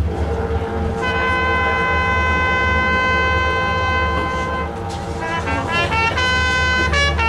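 Marching band wind instruments sound a long held note, then play quick rising runs of notes before settling on another held note near the end. A steady low hum lies underneath.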